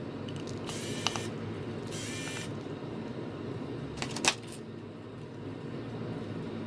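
Small handling noises at a repair bench: two brief scrapes about one and two seconds in, then a few sharp clicks a little after four seconds, over a steady low hum.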